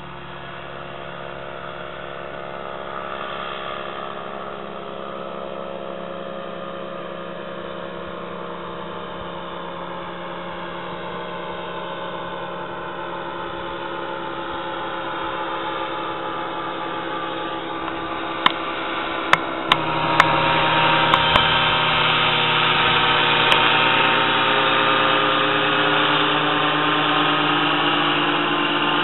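Engine and propeller of a powered paraglider trike droning overhead, a steady hum that slowly grows louder and steps up sharply about two-thirds in. A few sharp clicks come just before and around the step.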